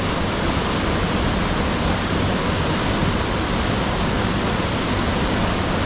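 Waterfall pouring: a steady, loud rush of falling water with no breaks.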